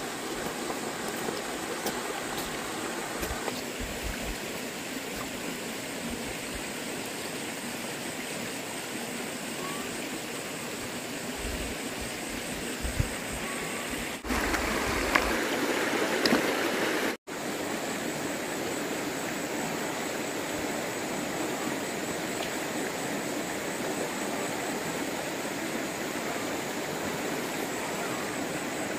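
Shallow rocky stream running, a steady rush of water, with a louder stretch about halfway through that cuts off suddenly.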